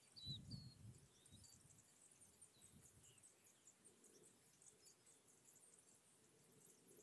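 Near silence: faint outdoor ambience with a few distant bird chirps and faint high-pitched ticking, with a soft low rumble in the first second.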